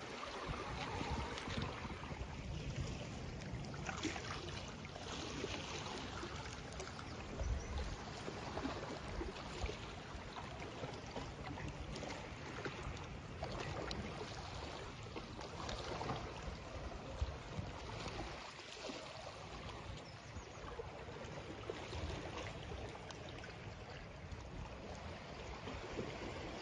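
Water washing and lapping steadily, rising and falling in gentle swells, with a low rumble underneath.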